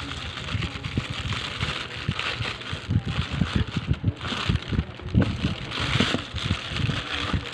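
Handling noise: many irregular soft knocks and bumps, with patches of rustling.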